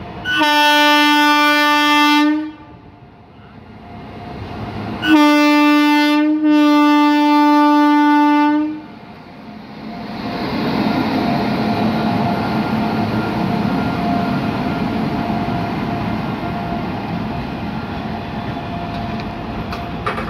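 A WAP-7 electric locomotive sounds its horn on one steady note: a blast of about two seconds, then a longer blast with a brief break in it. From about ten seconds in, the locomotive and its container wagons run past close by with a steady noise of wheels on rails.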